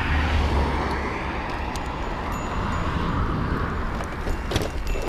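Wind rumbling on the microphone over a steady rushing road noise while riding a bicycle, swelling and easing slightly, with a few light clicks near the end.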